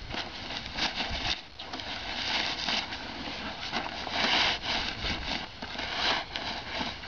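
Fabric rustling and crinkling in irregular bursts as a down vest is pushed and stuffed by hand into a stuff sack, compressing it.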